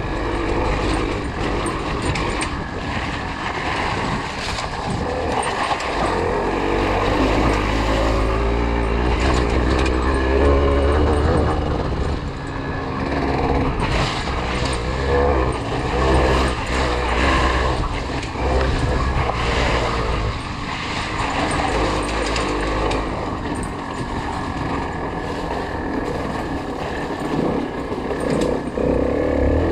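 Yamaha TDR 125's two-stroke single-cylinder engine running under riding load, its revs rising and falling with the throttle.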